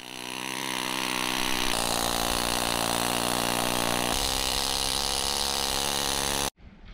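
Pneumatic needle scaler (needle gun) chipping rust scale off the steel pilot-house lip of a steel yacht: a steady, loud buzzing clatter that shifts pitch slightly twice and cuts off abruptly near the end.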